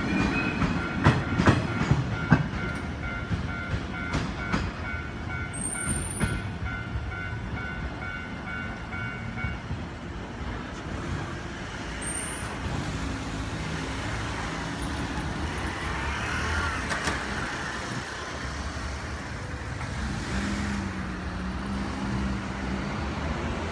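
The last of a 185-series train's wheels clattering over the rail joints, with the level crossing's warning bell ringing in a steady pulsing beat that stops about ten seconds in. Road vehicles then start moving across the crossing, their engines running.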